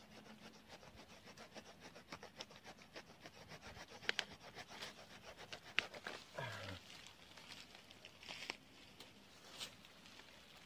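Faint rasping strokes of a hand saw cutting through tree roots, a quick even run of several strokes a second, with a few sharp clicks and a brief voice sound about six and a half seconds in.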